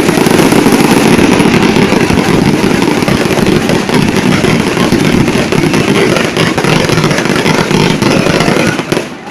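Fireworks display: a loud, dense crackle of rapid bursts with no break between them, stopping suddenly near the end.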